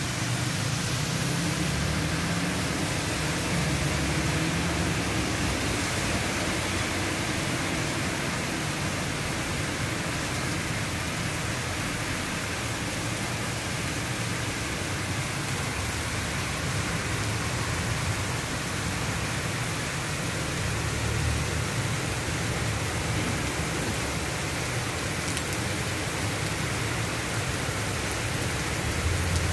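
Heavy rain falling steadily, a dense even hiss, with a low rumble underneath that swells and fades several times.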